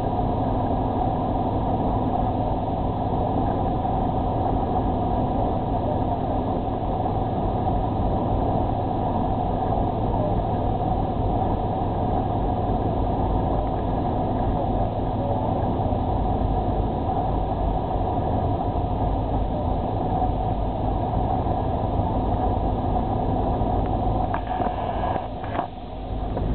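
Steady drone of a ferry's engines and onboard machinery, a constant hum of several steady tones over a low rumble. Near the end it dips briefly, with a couple of knocks.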